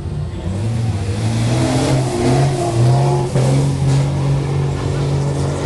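Iveco Trakker Dakar rally truck's diesel engine revving as the truck is driven hard in circles. The pitch climbs from about one to three seconds in, then holds at high revs.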